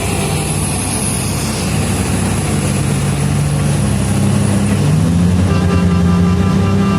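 Heavy diesel engines of mining machines running under load, their pitch rising about five seconds in. A steady high tone joins about five and a half seconds in.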